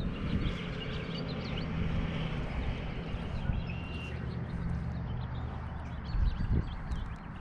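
Wind rumbling over the camera microphone on an open kayak, with water lapping at the hull and a few low knocks near the end.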